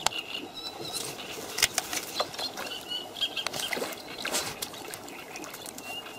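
A hooked fish splashing at the surface as it is swung out of the water on a float rod, about four seconds in, among scattered rustles and clicks. Short bird chirps sound behind.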